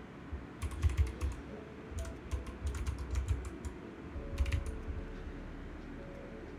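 Typing on a computer keyboard: three short runs of quick keystroke clicks, the first about half a second in, the second from about two seconds in, and a brief last one past four seconds.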